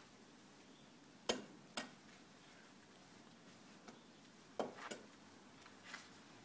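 A child's baseball bat tapping on the pavement: two sharp knocks about a second in, two more a little past halfway, and a couple of fainter ticks.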